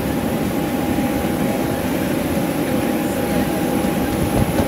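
Twin General Electric TF34 turbofans of an A-10 Thunderbolt II passing overhead: a steady jet rumble with a thin, constant whine above it.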